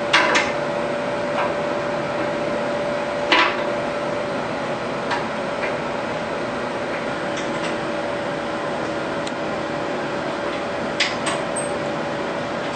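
Scattered light clicks and taps of a metal shower-door pull handle being fitted onto the glass door and its screws worked in, the sharpest about three and a half seconds in, over a steady background hum.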